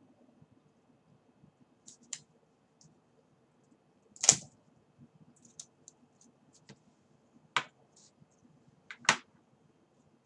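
Sharp clicks and light ticks from small objects handled by hand, four of them louder than the rest, the loudest about four seconds in.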